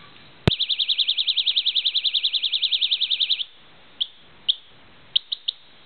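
Chinese bicycle alarm going off: a sharp click, then a fast warbling electronic siren, about ten wobbles a second, that stops after about three seconds. Five short chirps follow, two spaced apart and then three in quick succession.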